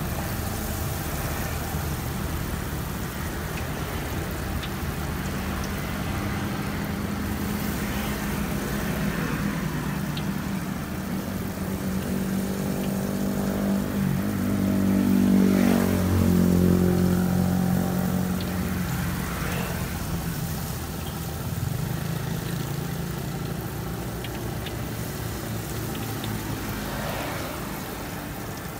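Road traffic engine noise throughout, with a vehicle passing close and loudest about halfway through. Under it is the faint hiss of battered bananas frying in a wok of oil.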